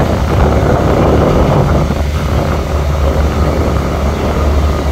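Fishing boat's engine running steadily, a loud, constant low drone.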